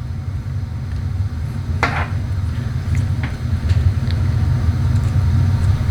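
Sharp plastic click about two seconds in, then a few lighter ticks, from a solenoid pack's wiring connector being handled, its locking tab broken. A steady low hum sits under it all.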